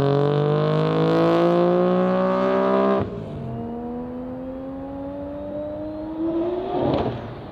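Three-rotor Mazda RX-7 rotary engine pulling hard, its note climbing steadily in pitch. About three seconds in it drops sharply in pitch and loudness, then climbs again more quietly. A short rush of noise comes near the end.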